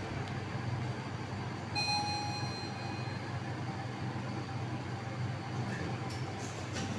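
Sigma Di1 traction elevator's arrival chime: a single electronic ding about two seconds in, fading over about a second, over a steady low hum inside the car.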